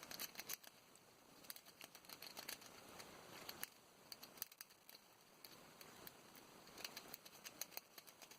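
Lock pick and tension wrench working inside a Master Lock 140 padlock: faint, irregular metallic clicks and scratching.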